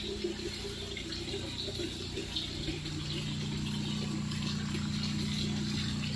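Water spraying from nozzles on an overhead pipe and splashing steadily into concrete catfish hatchery tanks, with a low steady hum underneath.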